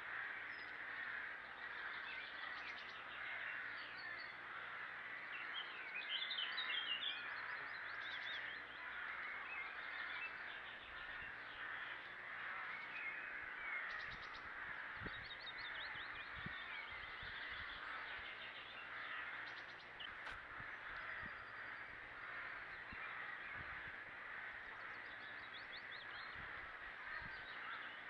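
Crows calling in the background over a steady hiss, the calls loudest about six seconds in, with a few faint low knocks later on.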